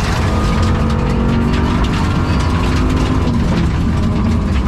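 Rally car's engine running hard under load, heard from inside the cabin, its pitch holding fairly level with a slight dip past the middle, over a steady clatter of sharp ticks and rattles. The engine has a bad misfire and is down on power.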